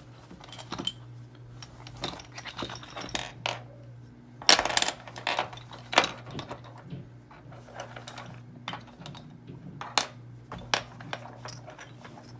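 Small metal padlock parts and tools clicking and clinking on a tabletop as a Master round-body padlock is taken apart, with a short rattle about four and a half seconds in and sharper single clicks later.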